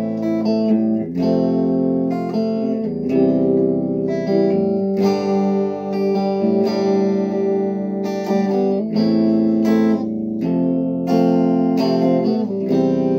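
Tagima electric guitar played clean straight into an amplifier, its five-way pickup selector in the second position: chords strummed and let ring, changing every second or so.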